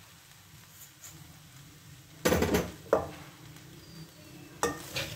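Metal turner knocking and clattering against a steel cooking pan: a quick clatter a little over two seconds in, a single knock just after, and two more knocks near the end.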